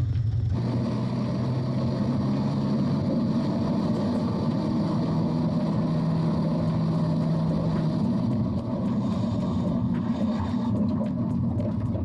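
Lada car driving on tarmac: steady road and wind noise with a low engine hum that shifts to a higher pitch partway through.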